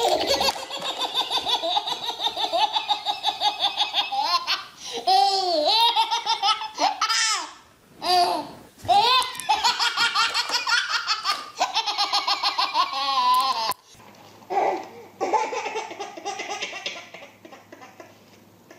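A baby laughing hysterically in long runs of rapid belly laughs, the pitch rising and falling. About fourteen seconds in it cuts to a second, quieter baby laughing.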